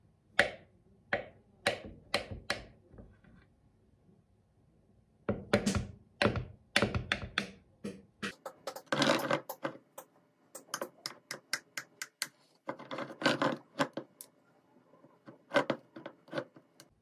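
Kitchen knife cutting a tiramisu cake on a wooden board: a string of sharp knocks as the blade taps the board, in short clusters, with a couple of longer scraping strokes in between.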